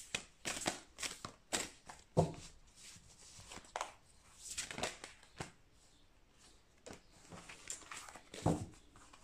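A deck of tarot cards shuffled by hand, overhand: soft, irregular slaps and rustles of the cards, with a sharper clack now and then.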